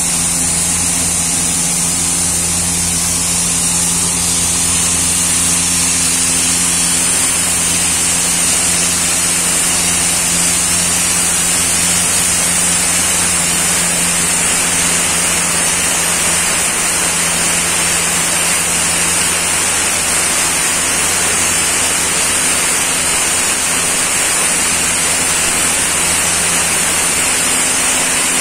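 Sandblaster blasting a motorcycle engine: a loud, steady hiss of compressed air and grit from the nozzle, over a steady low hum.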